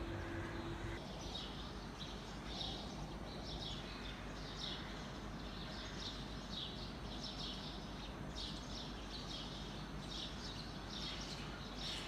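Birds chirping: short high chirps repeated irregularly, several a second at times, over a steady low background rumble. A faint steady hum dies away about a second in.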